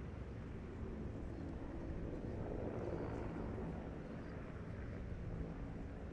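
Steady low outdoor rumble, swelling a little about halfway through.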